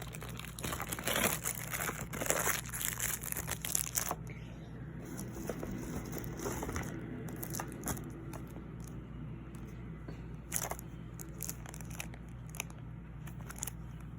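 Plastic packaging of magnetic-lash boxes crinkling and rustling as it is handled, busy for the first four seconds, then in scattered short crinkles and clicks.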